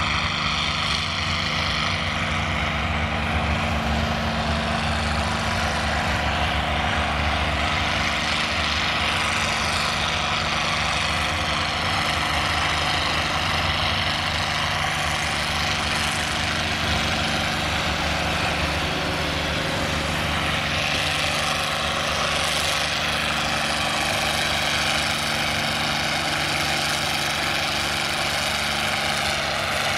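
John Deere farm tractor's engine running steadily under load as it pulls a weight-transfer sled.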